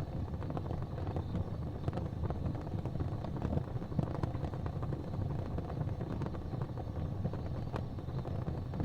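Fire burning in a fireplace: a steady low rumble of flame with frequent faint crackles and ticks.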